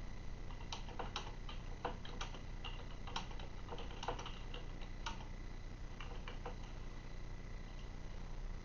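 Faint, irregular small clicks and ticks, a dozen or so spread over the first six seconds or so, over a steady low hum.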